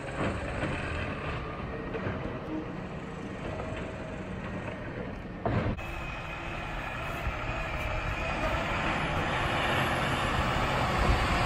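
Peterbilt 520 garbage truck's engine running as it drives down the street, growing steadily louder as it comes closer over the second half. A brief sharp bump about halfway through.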